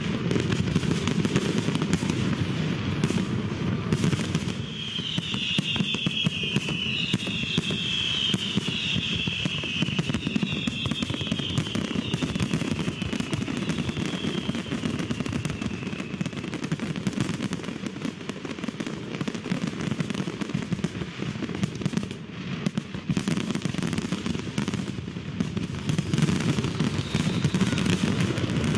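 Aerial bomb fireworks launching and exploding in a dense, continuous crackle of reports. A run of falling whistles sounds from about five to fifteen seconds in.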